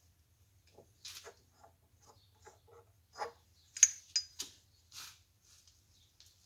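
Small metal parts and hand tools being handled: scattered clicks, scrapes and knocks, with two sharp ringing metal clinks about four seconds in.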